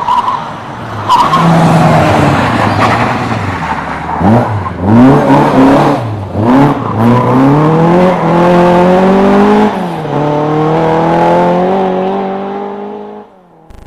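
Rally car at full throttle. A loud rushing noise comes first, then the engine revs flick up and down several times. After that it climbs steadily in pitch through the gears, with a shift about ten seconds in, and fades out just before the end.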